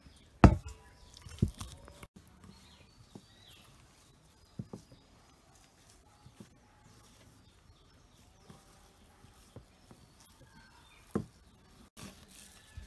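Hands kneading rice-flour dough in a steel bowl: two sharp knocks about half a second and a second and a half in, then scattered light taps and handling sounds, with one more knock near the end.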